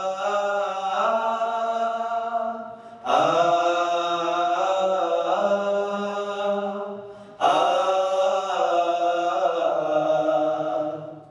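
A small group of male voices singing wordless held notes together in harmony, with no instruments heard, in three long phrases that each swell in and taper off, the last fading out at the end.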